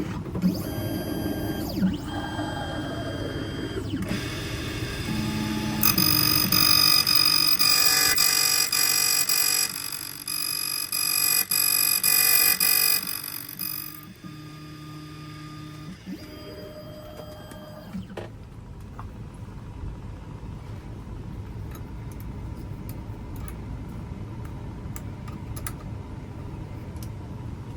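Electric key-cutting machine running and cutting a key blank by code: a steady motor whine with a loud, high-pitched cutting noise from about 6 to 13 seconds in, after which the machine runs on more quietly with light clicks.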